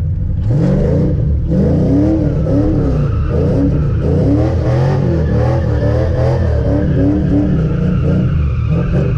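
Car engine revving over and over, its pitch rising and falling in quick blips about every second.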